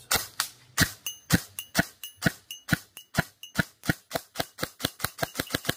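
Arcturus Trinity Alpha Carbine airsoft rifle firing single semi-auto shots in a rapid string, about two dozen sharp cracks that come faster toward the end. Several are followed by a brief metallic ring as BBs hit the steel plate targets.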